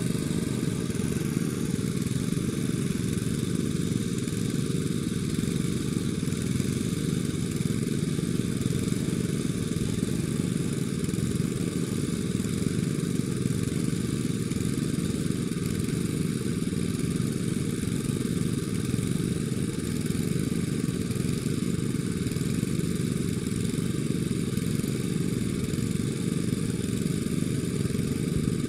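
Steady low drone of a small engine running without change.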